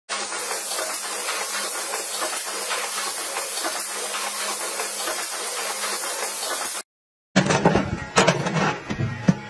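Rushing, splashing water in an apple washing flume with a steady machine hum from the fruit elevator; it stops abruptly near the end. After a brief gap, a run of sharp knocks and cracks over a motor hum as a log splitter splits wood blocks.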